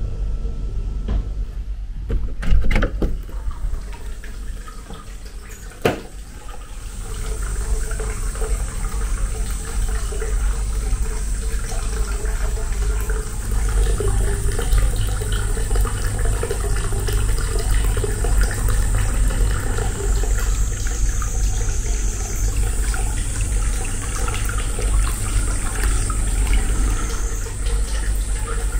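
Hot spring water pouring from a pipe into a stone soaking tub: a steady splashing flow. Two sharp knocks come in the first six seconds or so.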